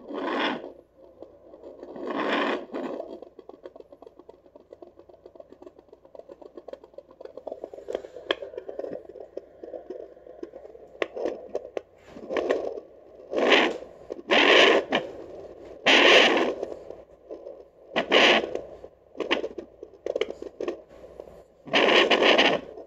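Handheld fetal doppler's speaker on a pregnant dog's belly: repeated loud, scratchy whooshes as the probe moves over the fur, with a quieter, fast fluttering pulse between them in the first half.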